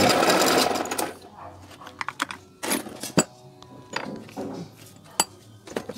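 Bench drill running with sandpaper held against the spinning soldering-iron tip, polishing it, then stopping about a second in. After that come scattered light clicks and knocks of small metal parts being handled.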